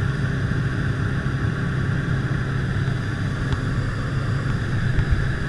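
Jump plane's engine and propeller heard inside the cabin in flight: a steady, unbroken drone.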